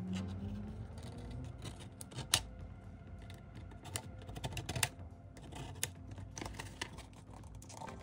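Small scissors snipping through cardboard tabs, with cardboard rustling and creaking as it is handled; sharp, irregular clicks a few times a second.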